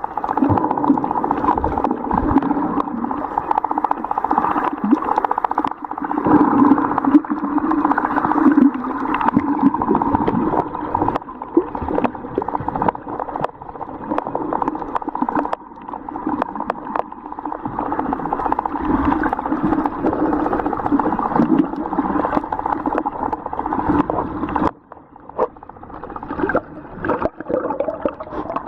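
Muffled underwater sound: a steady drone of water noise with scattered clicks. It drops abruptly for a moment near the end.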